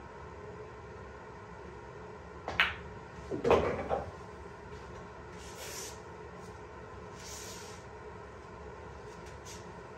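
Pool balls on a pool table: a sharp click about two and a half seconds in, then about a second later a louder clatter of balls knocking together.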